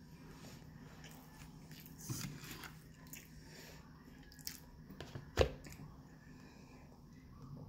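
Quiet chewing and mouth sounds over a low steady hum, with a few small clicks about two seconds in and one sharp knock a little past five seconds.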